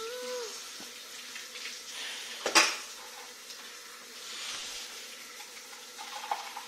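A small child blowing out puffs of breath, with one sharp, loud puff about two and a half seconds in and softer rushing breaths around it; a brief high little vocal sound right at the start.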